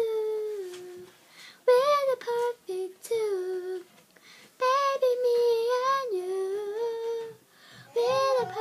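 A young girl singing unaccompanied, without clear words: four phrases of held, gliding notes with short breaths between them.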